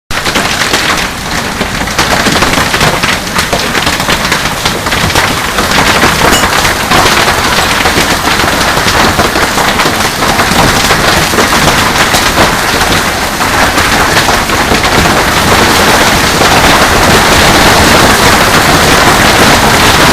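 Hail pounding down: a dense clatter of many sharp stone impacts over a steady roar, growing louder toward the end.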